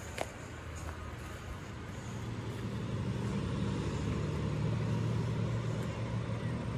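A heavy truck driving along the road, its low engine rumble growing louder over a few seconds and easing slightly near the end. A brief sharp tick just after the start.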